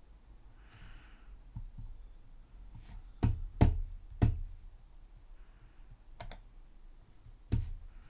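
Computer mouse and keyboard clicks: scattered single clicks, a quick group of three near the middle and two more later.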